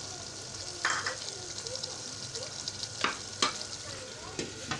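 Chicken, potato and green bean curry sizzling steadily in a pan, with a few sharp knocks of utensils on the pan. Near the end, a glass lid is set down on the pan with a couple of clacks.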